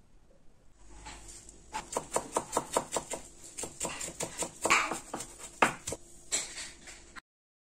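Kitchen knife chopping fresh parsley on a wooden cutting board: quick, even knocks of the blade on the board, about five a second, with a few harder knocks. It stops abruptly near the end.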